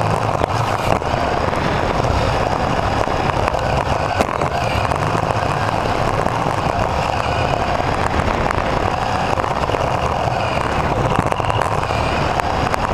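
Onboard sound of a radio-controlled Mini-class racing car running on a carpet track: a steady whir of motor and gears with a faint whine that rises and falls with speed. Rapid small clicks and rattles come from the chassis.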